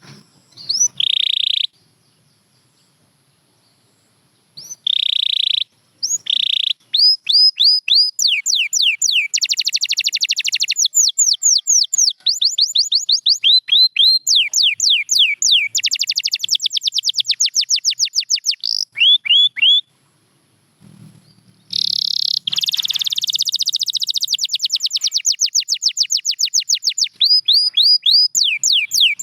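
Domestic canary singing: a few short buzzy notes, then long runs of rapid, repeated down-slurred notes and fast trills, broken by a brief pause about two-thirds of the way through.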